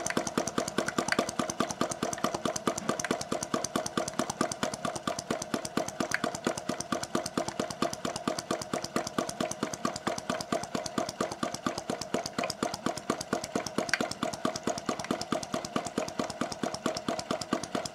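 Self-built model flame-eater (flame-licker hot-air engine) running steadily, its valve drawing the burner flame into the cylinder at every stroke. It makes a fast, even knocking rhythm, almost like a small diesel, with a steady tone underneath.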